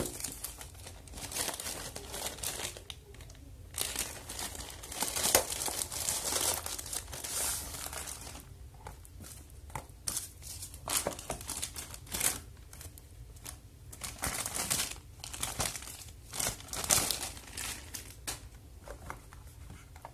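A plastic courier mailer bag being torn open and crumpled by hand, in irregular bursts of crinkling with some tearing.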